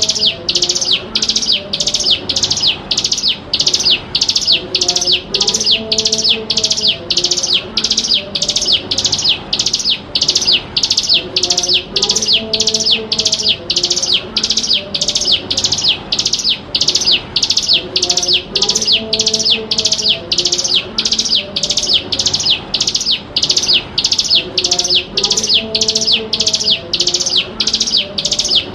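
Ciblek gunung (hill prinia) calling, a sharp high note repeated evenly about twice a second without pause. It is a lure call (pancingan) of the kind used to draw wild birds and to teach young captive birds the song.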